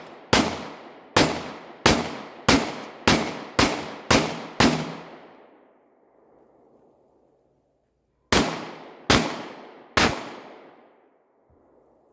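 Taurus 9mm pistol firing: eight shots in quick succession, roughly one every half second, then after a pause of about three seconds three more shots. Each shot cracks and trails off in a fading echo.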